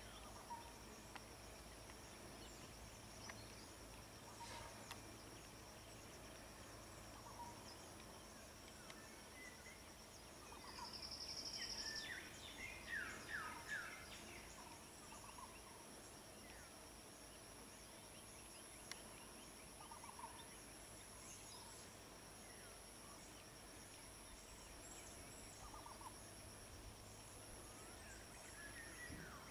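Faint outdoor ambience: birds calling now and then, with a cluster of quick falling chirps about halfway through, over a steady high-pitched whine.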